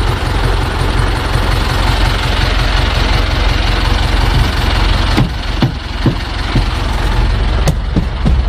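Zetor tractor's diesel engine running close by with a steady low throb. A few sharp clicks and knocks come through in the second half.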